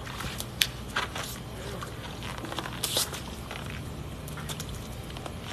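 Wet footsteps and scuffs of flip-flops on a wet concrete floor, squishing, with a few sharp clicks and a short rush of noise about three seconds in.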